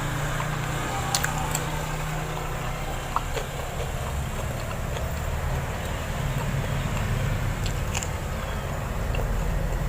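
Chewing and mouth sounds of someone eating fatty mutton curry, with a few sharp clicks, over a steady low rumble.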